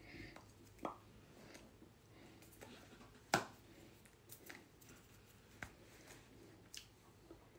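Quiet small room with scattered soft taps and clicks, the loudest about three seconds in: hands striking and brushing against each other and the body while signing.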